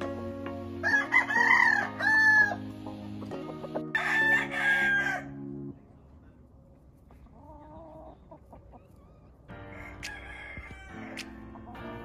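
A rooster crowing twice, each crow several syllables long, over background music. The music cuts out about halfway through and comes back near the end.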